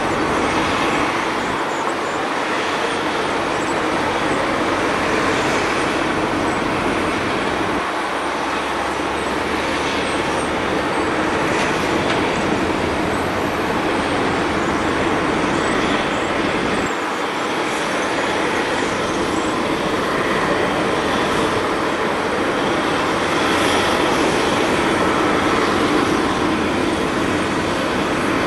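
Steady jet engine noise from Airbus A320 airliners landing and taxiing.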